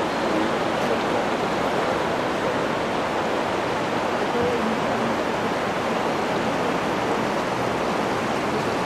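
Steady rushing noise of the flooded Jizera river's fast brown current.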